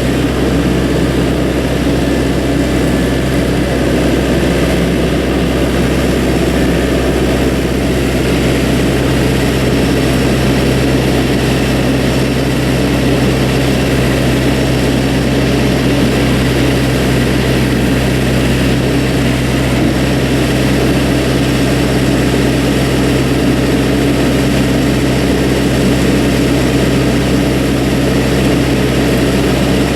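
Skid steer loader engine running at a steady, unchanging speed, a loud continuous low hum.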